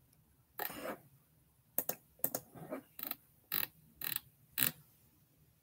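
Computer keyboard keys clicking one at a time, about two presses a second, after a short softer rustle near the start.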